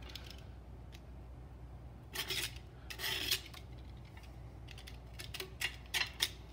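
Knife blade cutting overhanging grip tape along the edge of a scooter deck: two scratchy strokes about two and three seconds in, then a run of shorter scratches and clicks near the end.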